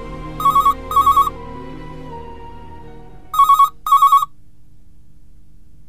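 Landline desk telephone ringing with an electronic double ring: two short bursts at a time, twice, about three seconds apart. Soft background music fades out under the first ring.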